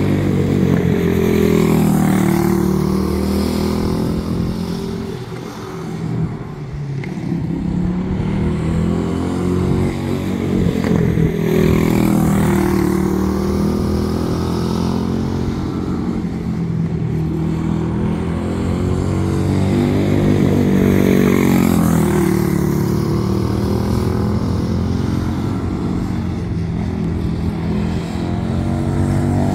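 Quarter midget race car's single-cylinder Briggs & Stratton Animal engine lapping a small dirt oval. Its pitch climbs on the straights and drops as the driver lifts for the turns, in cycles of about five to six seconds, getting louder and fainter as the car goes around.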